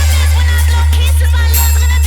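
Electronic dance remix music with a heavy, sustained bass tone under warbling synth sounds.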